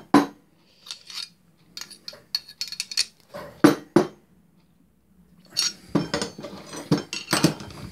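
Steel bars and blacksmith's tongs clinking and clattering together on a workbench: a run of sharp metallic knocks, a quiet gap of about a second just past the middle, then a busier cluster of clinks as another steel bar is picked up.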